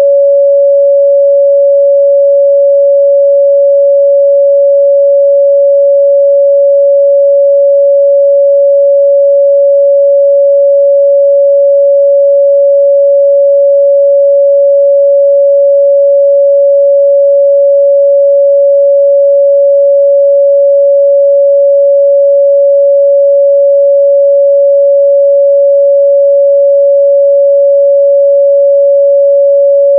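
Pure 562 Hz sine-wave test tone, a single steady pitch held at constant loudness with no other sound.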